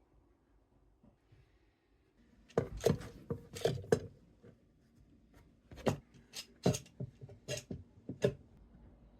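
A series of sharp knocks and clicks, about ten of them starting a couple of seconds in, from wooden parts and clamps being handled and set during a glue-up.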